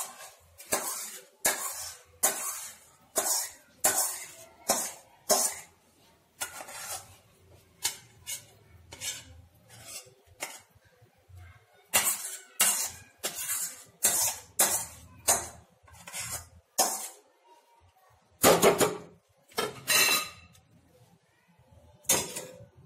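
A flat steel spatula scraping the inside of a stainless-steel kadhai in quick repeated strokes, roughly one every two-thirds of a second, as hot caramelised sugar and sesame is scraped out of the pan. The strokes thin out to a few louder ones in the last few seconds.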